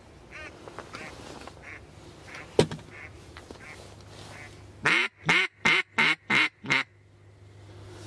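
Mallard quacking: soft, scattered quacks through the first few seconds, then six loud quacks in quick succession about five seconds in. A single sharp knock about two and a half seconds in.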